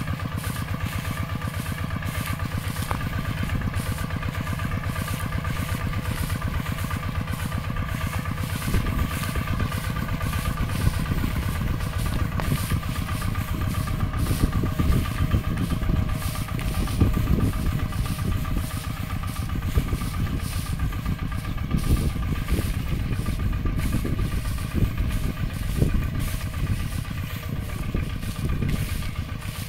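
Two-wheel walking tractor's single-cylinder diesel engine running steadily while pulling a trailer loaded with straw bales. From about nine seconds in the sound turns louder and more uneven in the low end.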